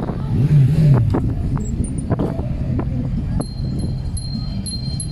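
Town street ambience: a steady low rumble with scattered knocks and a brief low rise-and-fall about half a second in. From about three and a half seconds in, a high ringing tone with quick repeated chimes joins it.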